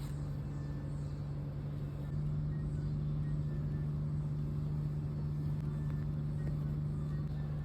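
Steady low hum with one strong droning pitch, stepping slightly louder about two seconds in.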